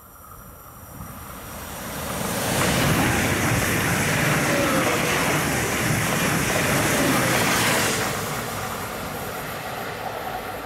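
Two coupled class 429 Stadler FLIRT electric multiple units passing at speed close by on the track: the rolling noise swells over about two seconds, stays loud for about five seconds, then falls away.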